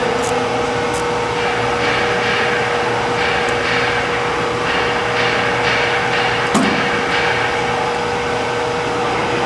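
A steady machine hum with one constant tone running through it, and a single sharp knock about six and a half seconds in.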